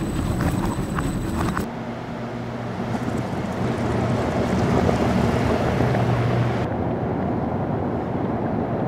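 Jeep Grand Cherokee L being driven over a rough test-track surface: a steady low engine hum with tyre and road rumble. It comes in suddenly about two seconds in, after a brief stretch of sharp clattering.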